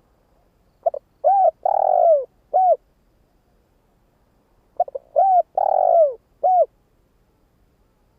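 Spotted dove, a decoy bird, singing its cooing song: two phrases about four seconds apart, each a short lead note, two quick coos, a longer rougher coo and a final coo.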